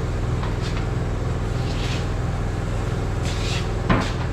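A steady low mechanical drone, like a running engine or machine, with short hissing sounds and a sharp metal clank about four seconds in, as parts and tools are handled during work on a truck's wheel end.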